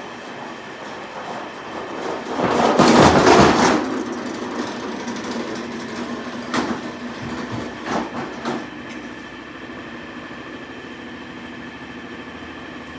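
Tractor engine running steadily, with a loud rushing burst about three seconds in and a few sharp knocks a few seconds later.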